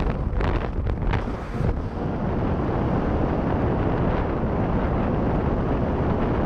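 Wind rushing over the microphone of a handheld camera on a tandem skydive. For the first couple of seconds there is fast flapping as the parachute opens, and then a steady rush of air under the open canopy.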